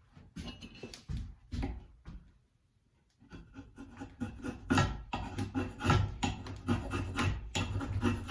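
Repeated scraping strokes of a sharp hand tool shaving curls off a wooden axe handle. The strokes stop briefly about two seconds in, then come back faster and louder.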